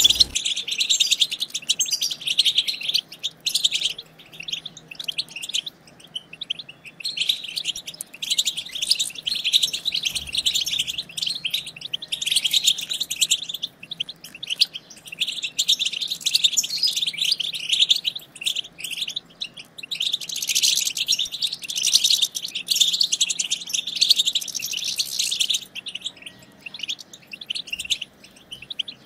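European goldfinches twittering: a fast, dense stream of high chirps and trills, in runs of several seconds broken by short pauses.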